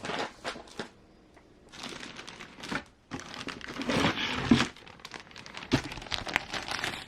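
Packaging crinkling and rustling in irregular bursts, with a few sharp clicks, as kit parts are handled and unpacked.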